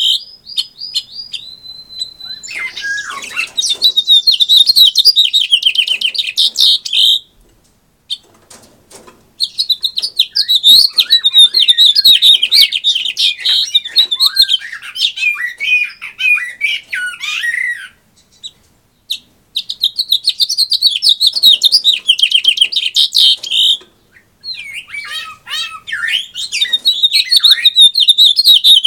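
Captive male house finch singing: long warbling phrases of quick notes ending in rapid trills, broken by short pauses about three times.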